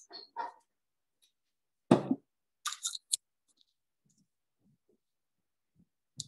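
A few short clicks and knocks separated by dead silence; the loudest is a dull thump about two seconds in, followed by a quick cluster of sharp clicks a second later.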